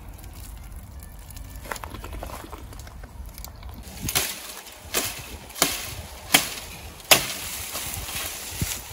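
Green branches being broken off a small tree: five sharp woody cracks, a little under a second apart, starting about halfway through.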